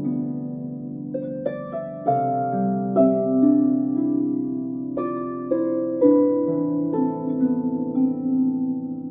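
Background music of a harp playing plucked notes and arpeggiated chords, changing every second or so.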